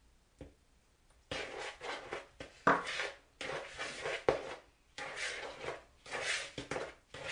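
Knife and fingers working crumbly biscuit-dough mix in a plastic mixing bowl. It comes as spells of gritty scraping and rustling with a few sharp knocks against the bowl, as the wet egg mix is cut into the buttery crumbs to bring the dough together. The first second or so is nearly silent.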